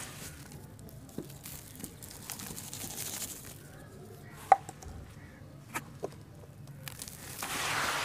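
Hands squeezing and crumbling damp, gritty charcoal ash and sand, with soft crunching and grains pattering down. Scattered sharp clicks run through it, the loudest about halfway through, and the gritty rustle grows louder near the end.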